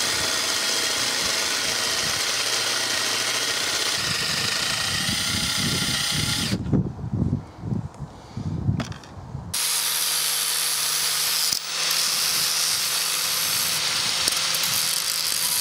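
Electric drill boring holes through a small piece of steel plate for a clutch-hose bracket: a steady run of about six and a half seconds, a pause of about three seconds, then a second steady run.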